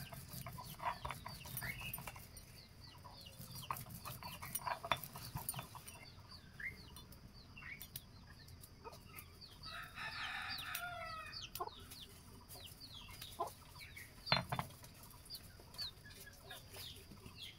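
Chickens clucking, with one longer, louder call about ten seconds in. Through the first few seconds, stone knocks and scrapes on a flat stone grinding slab as a hand stone is worked, and there is one sharp knock about fourteen seconds in. Small birds chirp in the background.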